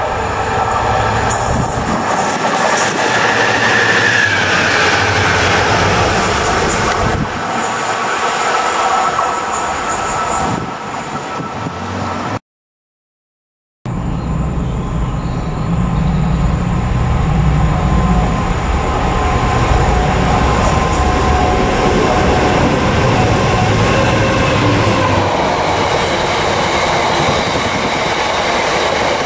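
Class 66 diesel locomotive running light through a station, its engine running as it passes. After a short break, a Class 59 diesel locomotive approaches and passes at the head of a train, its engine loud and deep, followed by the rolling rumble of the box wagons behind it.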